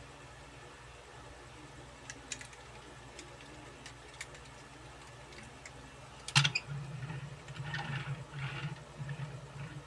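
Light clicks from a toy truck and trailer being handled. About six seconds in it is set down with a sharp clack, and it is then rolled along a hard tabletop, its small wheels rumbling and rattling.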